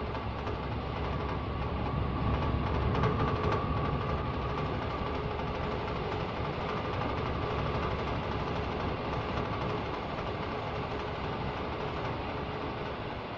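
A diesel hydraulic power unit running steadily while driving an auger drill that bores into the earth, with a faint steady whine through the engine noise.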